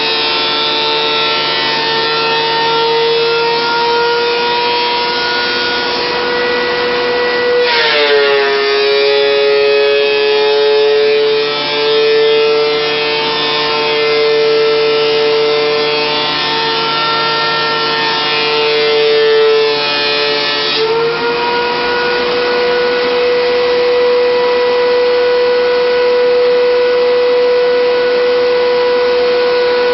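Thickness planer running with a loud, steady whine. About eight seconds in the pitch drops as the cutterhead bogs under the load of a maple board feeding through, and it rises back some thirteen seconds later as the board clears.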